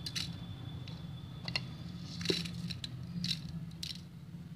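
Soaked, drained rice being pushed from a steel bowl into an empty aluminium pressure cooker: scattered short rustles and clicks as clumps of wet grains drop onto the pot's bottom and the bowl knocks against the cooker's rim, over a steady low hum.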